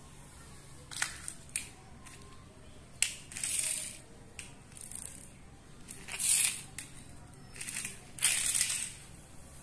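Small plastic toy vehicles set down and pushed across a hard tile floor: a few sharp clicks, then three bursts of rushing wheel noise, the loudest about six seconds in.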